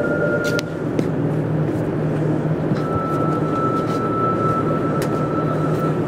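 Interior running noise of a JR Kyushu 303 series electric multiple unit heard from its motor car: a steady rolling rumble. A steady high tone, typical of the Hitachi VVVF inverter, stops about half a second in, and a slightly lower steady tone comes in about three seconds in.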